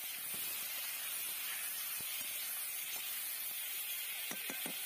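Tomato wedges sizzling in hot oil in a metal kadai: a steady frying hiss, with a few quick scrapes of a steel spatula against the pan near the end.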